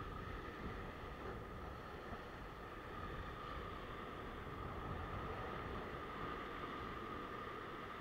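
Steady wash of surf breaking over a rock ledge, mixed with wind rumble on the microphone, with a faint steady high tone running underneath.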